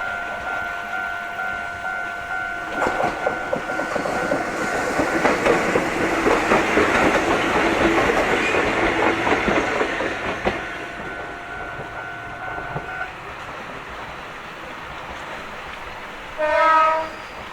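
Japanese railway level-crossing alarm ringing with a steady pulsing electronic 'kan-kan' while a train passes over the crossing, its wheels clattering for several seconds. The alarm stops about thirteen seconds in, and a train horn sounds once briefly near the end.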